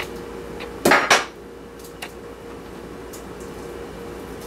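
A metal table knife clattering down twice in quick succession about a second in, with a few light clicks of handling afterwards and a steady hum underneath.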